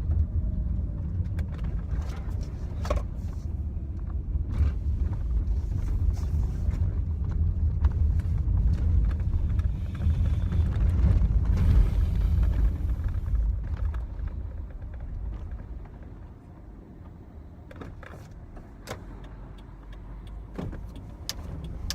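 Car being driven, heard from inside the cabin: a steady low road and engine rumble that drops to a quieter level about two-thirds of the way through, with a few light clicks.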